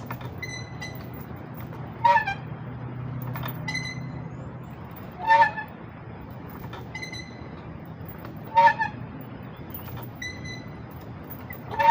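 Playground swing squeaking as it goes back and forth: a loud squeak about every three seconds, each followed by a fainter, higher squeak, in a steady rhythm.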